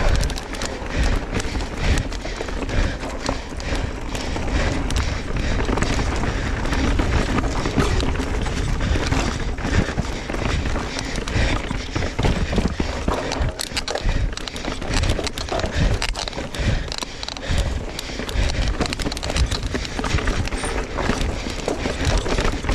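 Mountain bike ridden fast down a rough trail: a continuous clatter of knocks and rattles as the tyres and bike hit rocks and roots, over a heavy low rumble of wind on the microphone.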